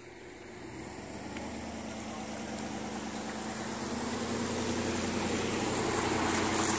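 SUV engine running as it backs a boat trailer down a ramp into the water, its steady hum growing louder throughout.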